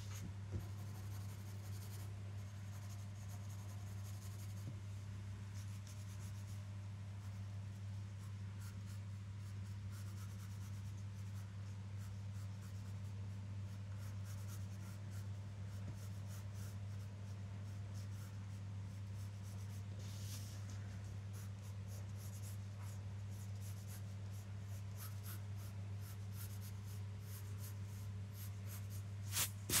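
Graphite pencil scratching on paper in many short, quick strokes as feathers are sketched, over a steady low hum. A sharper click sounds near the end.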